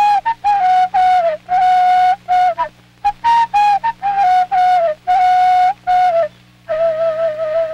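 A solo flute plays a slow melody of held notes in short phrases, many ending with a slight downward bend, separated by brief pauses. A faint steady hum lies underneath.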